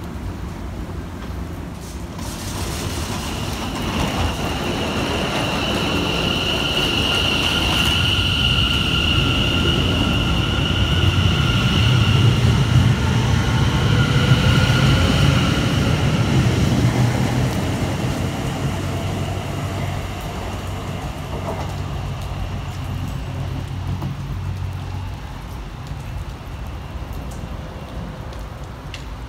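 Electric multiple-unit passenger train pulling out and accelerating away: a steady electric whine over wheel rumble on the rails. It builds to its loudest about halfway, then fades as the train leaves, with rain falling throughout.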